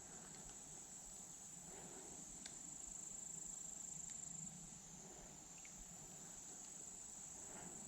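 Insects trilling in a faint, steady, high-pitched chorus, with a couple of small ticks in the middle.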